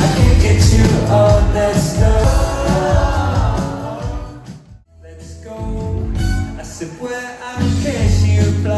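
Live band playing with a singer, guitars, bass, drums and keyboards, recorded in a concert hall. The music drops out sharply for a moment about five seconds in, then picks up again on another passage of song.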